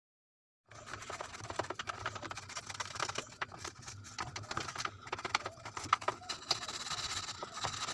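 Scrubbing and scraping inside the detergent filter of a single-tub washing machine: an irregular run of short scratchy clicks and rubbing, starting suddenly just under a second in, from a hard-to-reach spot crusted with detergent residue.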